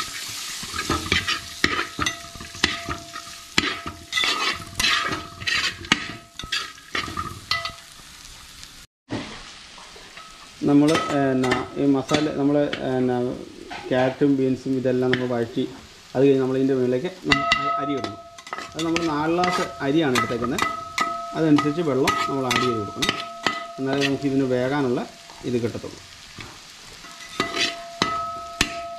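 A metal spatula stirring and scraping frying vegetables in a large aluminium pot, a dense run of scrapes and clicks over sizzling. Through the middle, the loudest sound is a low wavering tone in phrases of a second or two. The sound cuts out for a moment about nine seconds in.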